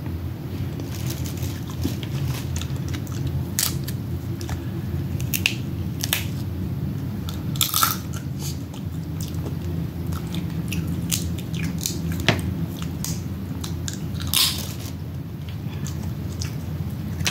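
Close-miked eating of crab: chewing and crunching, with several sharp cracks of crab shell being broken, over a steady low hum.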